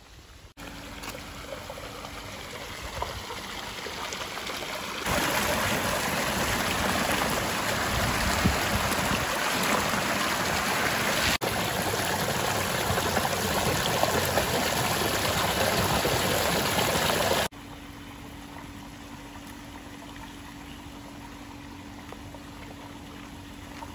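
Water gushing from a pipe into a concrete tank as hands rinse raw chicken drumsticks under the stream, loud for about twelve seconds in the middle with a brief break. Before and after, the water is quieter and a steady low hum runs under it.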